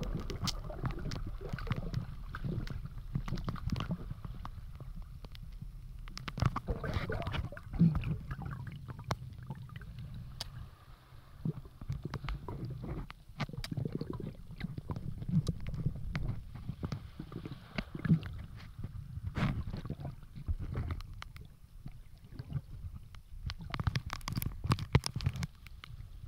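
Underwater sound picked up by a submerged camera: a muffled low rumble of moving water with many scattered clicks and crackles, swelling louder a few times.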